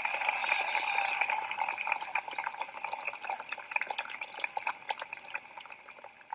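Large crowd applauding and cheering, fading away near the end, heard through a thin old recording.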